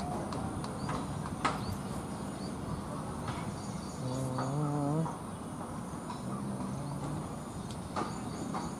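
Steady high insect buzzing in open-air ambience, with a man's drawn-out call about four seconds in and a fainter one shortly after. There is a sharp knock about a second and a half in and another near the end.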